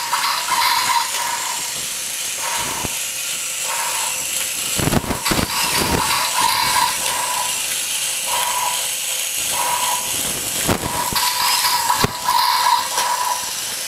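Battery-operated toy robot walking: its mechanism runs with a steady hissing whir while a high electronic tone keeps starting and stopping, and a few sharp knocks sound as it moves over the hard floor.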